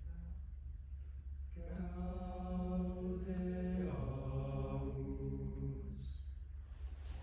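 Choir singing unaccompanied long held chords. The chords enter about a second and a half in and shift around four seconds, with a soft 's' near the end, over a steady low hum.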